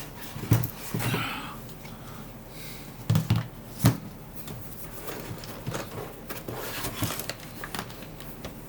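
Scattered light clicks and knocks of small parts being handled at a workbench, as removed screws are set into a parts tray. A cluster of sharper knocks comes a little after three seconds in.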